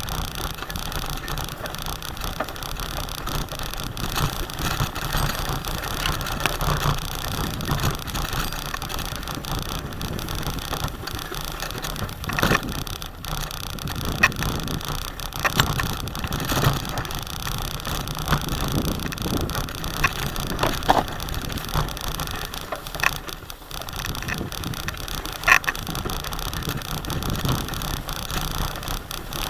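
Bicycle riding over a rough, overgrown dirt track through tall grass: a steady rushing noise of tyres, grass and wind on the microphone, with scattered clicks and rattles from the bike.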